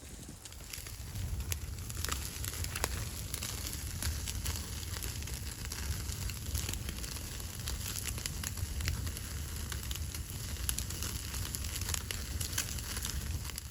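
Wood fire crackling, with many irregular sharp pops and snaps over a steady hiss and a low rumble.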